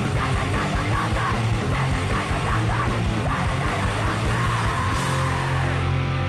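Fast, loud punk rock with distorted guitars, rapid drumming and shouted vocals. About five seconds in the drumming stops and a distorted guitar chord is left ringing.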